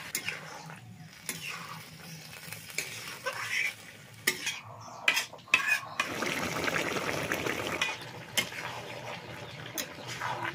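Metal spatula stirring and scraping a thick vegetable-and-fish curry in a metal kadai, with sharp clinks against the pan, loudest about five to six seconds in, over the hiss of the simmering, sizzling curry.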